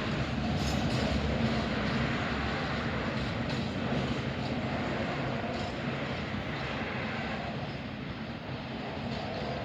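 Freight train of Eas open wagons rolling past, a steady rumble of wheels on rail with occasional sharp clicks over rail joints. The noise eases off slightly toward the end.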